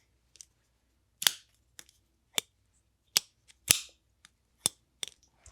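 Civivi Elementum Utility folding knife being flicked open and snapped shut over and over: a string of about eight sharp clicks, roughly one every half second.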